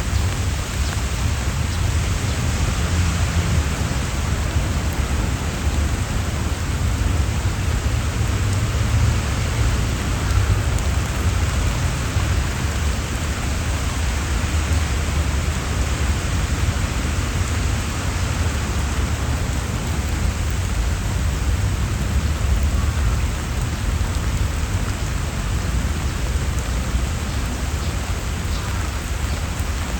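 Steady rain falling on leaves and stone paths, an even hiss of drops, with a steady low rumble underneath.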